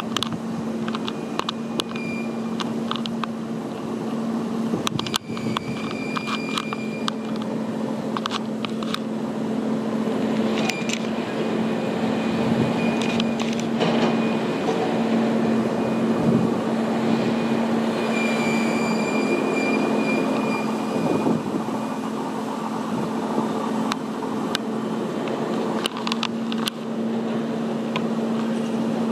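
Hydraulic excavator's diesel engine running steadily with a constant hum as it scoops wet soil and sludge and loads it into a dump truck. A few short high whines and scattered knocks of the working machinery come through.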